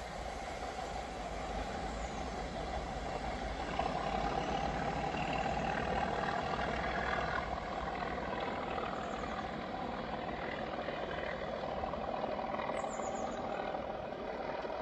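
Class 37 diesel locomotive's English Electric V12 engine working hard in the distance: a steady low rumble as the train draws away.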